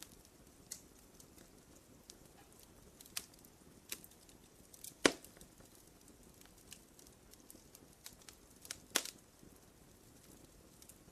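Wood campfire crackling: scattered sharp pops and snaps over a faint low hiss, with the loudest pops about five seconds in and again near nine seconds.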